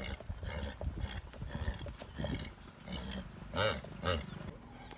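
A group of Marwari horses walking on a dirt track, hooves thudding unevenly, with two short loud snorts from a horse about three and a half and four seconds in.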